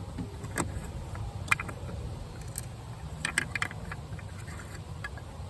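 Scattered small clicks and taps of a hand screwdriver working a larger screw out of a van's plastic interior door panel, with a cluster of quick clicks about three seconds in, over a steady low rumble.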